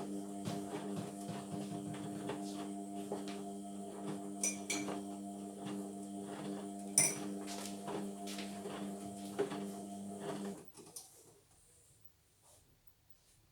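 Indesit washing machine turning its drum during the wash: a steady motor hum with frequent clinking and clicking of things in the drum, which stops about ten and a half seconds in.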